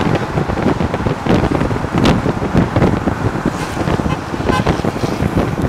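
Wind rushing and buffeting over the microphone at speed, over a steady rumble of rolling on asphalt.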